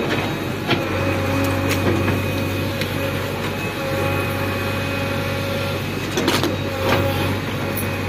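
JCB backhoe loader's diesel engine running steadily, with a few sharp knocks over it.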